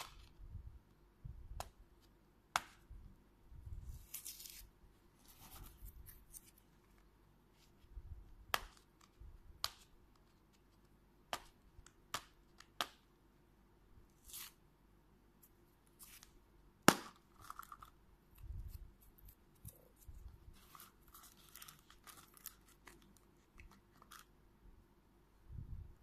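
Thin plastic wrapping being torn and peeled off a clear plastic toy capsule egg, with short crinkling rustles and scattered sharp plastic clicks, one louder click about two-thirds of the way through.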